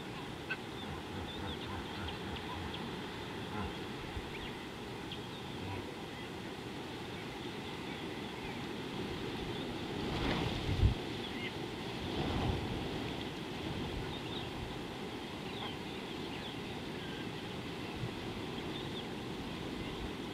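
Outdoor ambience of a steady wind-like hiss with faint, scattered high bird chirps. About ten seconds in the noise swells for a couple of seconds, with a short thump.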